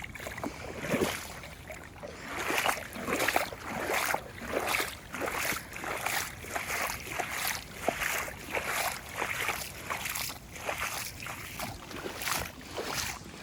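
Footsteps splashing and sloshing through shallow floodwater on a lawn, about three steps every two seconds, over the steady rushing of a swollen river nearby.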